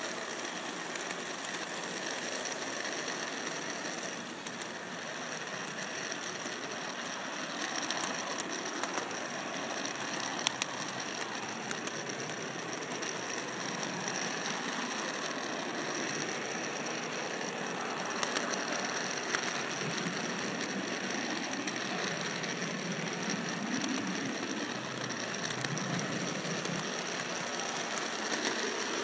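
Model train running along its track: a steady mechanical whirr of the motor and gearing with a high whine, and scattered sharp clicks from the wheels.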